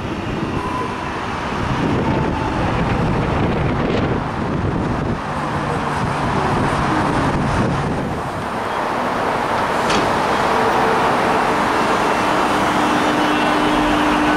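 X'Trapolis 100 electric suburban train pulling into the platform, its motor whine falling in pitch as it slows. It then stands with a steady low hum, with a single sharp click about ten seconds in.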